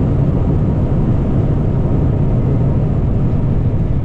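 Airbus A320 cockpit noise on the landing rollout just after touchdown: a steady, loud, low rumble of engines, airflow and wheels on the runway.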